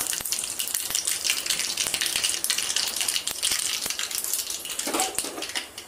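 Cumin and mustard seeds sizzling in hot fat in a small tadka pan over a gas flame. A steady hiss is peppered with sharp crackles and pops as the seeds splutter.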